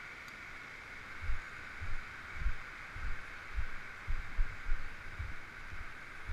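Hiker's footsteps on a gravel ledge path, heard as dull low thumps about two a second, starting about a second in, over a steady hiss.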